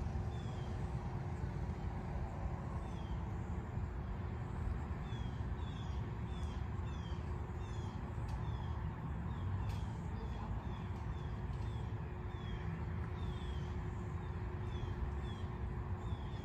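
Steady low outdoor rumble with a faint steady hum, over which a bird gives short, high, falling chirps. The chirps are sparse at first, then come about twice a second from about five seconds in.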